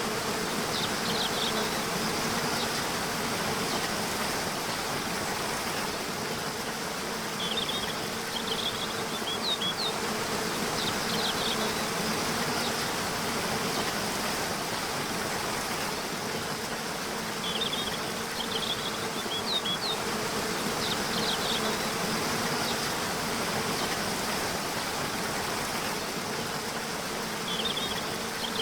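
Waterfall rushing steadily under a constant low buzz, with a small bird's short high chirping phrases coming in about every ten seconds.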